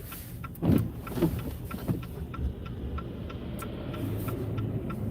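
Car cabin road noise while driving on a snowy road: a steady low rumble with a regular light ticking about three times a second. A few louder swells come between one and two seconds in.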